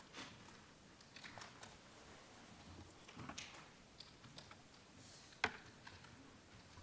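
Near silence: faint room tone with scattered soft clicks and taps, and one sharper click about five and a half seconds in.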